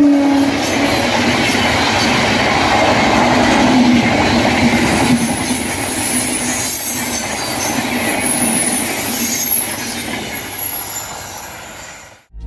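Chandigarh–New Delhi Shatabdi Express passing: the end of its horn dips in pitch in the first half second, then a steady rush of wheels and coaches on the rails with thin high squeals, fading away near the end.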